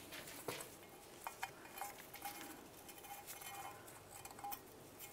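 Faint light clicks and scrapes as a new ABS wheel speed sensor and its wire are handled and worked through a brake backing plate toward the wheel bearing.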